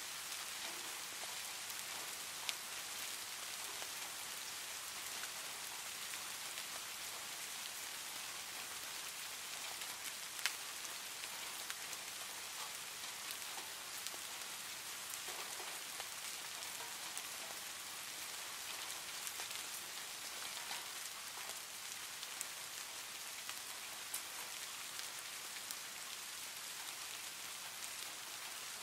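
Steady rain falling: an even hiss with scattered sharp ticks, the sharpest about ten seconds in.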